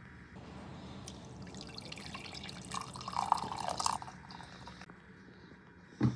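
Hot water being poured over coffee grounds in a pour-over, a steady trickle that swells about three seconds in and stops about four seconds in.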